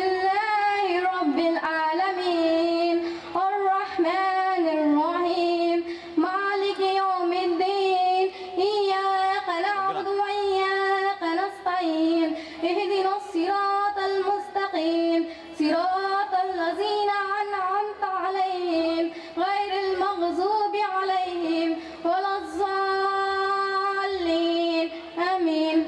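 A girl's solo voice singing a slow melodic line into a microphone, with long held notes that waver in pitch and short pauses for breath, unaccompanied.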